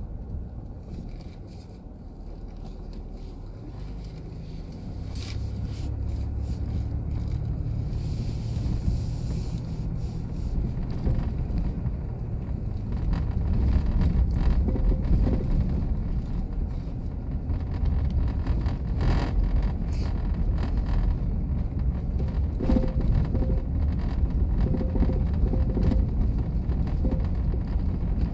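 Road noise inside a camper van driving on a bumpy sand-covered road: a low rumble of tyres and engine with scattered knocks and rattles. It dips a couple of seconds in, then builds and is louder through the second half.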